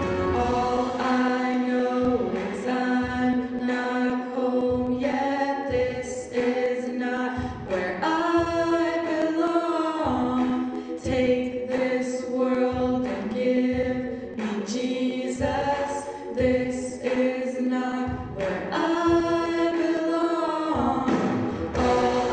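Two women's voices singing a worship song in harmony, holding long notes in phrases.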